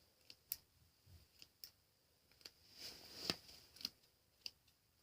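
Scissors snipping through the rubbery, dried-out crust of slime: a string of faint, sharp clicks and snips at uneven intervals, the loudest a little past three seconds in.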